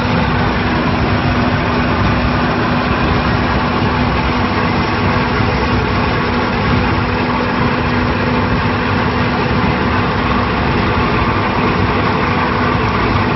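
A smooth roller crusher plant running steadily, with its belt conveyors carrying crushed gravel. It makes loud, unbroken machinery noise with a constant hum underneath.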